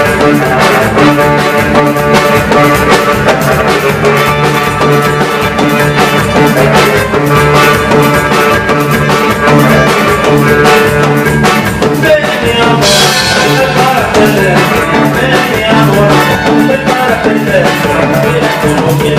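Band music with a steady drum beat, instrumental with no singing.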